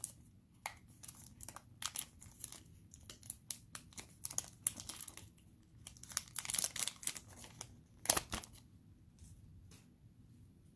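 Foil wrapper of a Panini Mosaic football card pack crinkling and tearing open in gloved hands: a run of irregular sharp crackles that thin out near the end.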